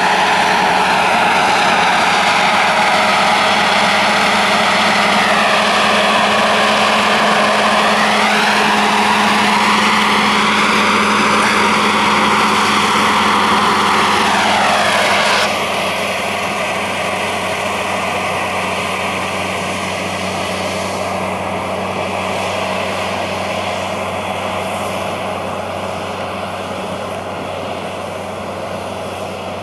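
Torum combine harvesters threshing wheat, with a tractor and grain cart alongside: a steady engine and machinery drone. A higher whine slides up and down in the middle. The sound drops a step about halfway through, then fades slowly as the machines move off.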